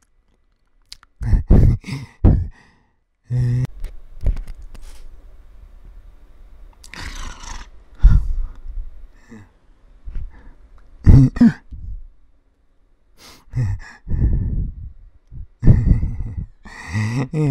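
A man making short wordless vocal sounds while eating from a spoon: about half a dozen separate bursts with quiet pauses between them.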